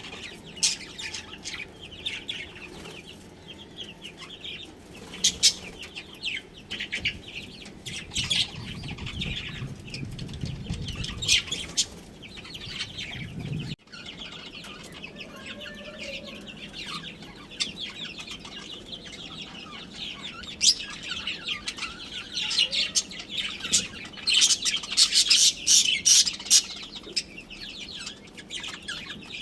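Budgerigars chirping and chattering in quick, overlapping bursts, thickest near the end, with a brief break halfway through.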